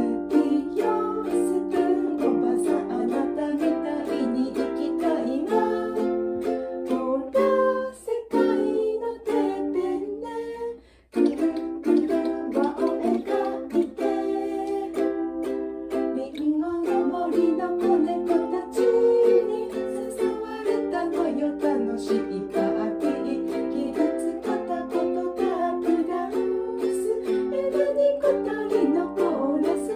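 Two ukuleles strummed together in a duet while a woman sings the melody along with them. The playing breaks off for a moment about eleven seconds in, then picks up again.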